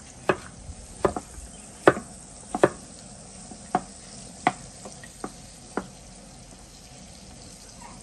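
About ten sharp, irregular taps of kitchen utensils in the first six seconds, over a steady sizzle of food frying in a pan.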